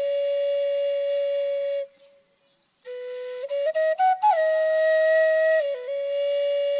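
Solo melody on a flute-like wind instrument: long held notes, a break of about a second starting two seconds in, then a few quick short notes leading into another long held note.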